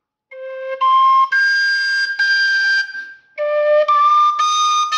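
Thai khlui, a vertical duct flute, playing a slow run of clear held notes at different pitches, jumping up and down, with a short break about three seconds in: notes played to check the flute's tuning.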